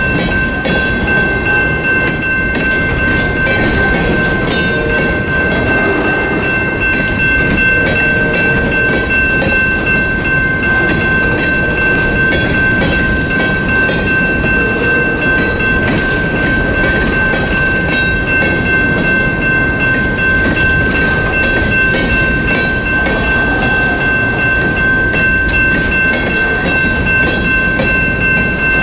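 Freight train of open-top coal cars rolling steadily past a grade crossing, the wheels rumbling and clattering over the rails. A steady high-pitched tone runs unbroken throughout.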